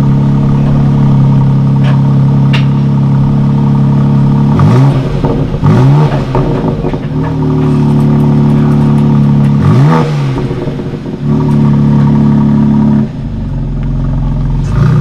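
BMW X4 M Competition's twin-turbo 3.0-litre straight-six, heard at its quad exhaust tips, running steadily and blipped into three quick revs that rise and fall, about four and a half, five and a half and ten seconds in. About two seconds before the end it settles to a lower, quieter idle, and another rev starts right at the end.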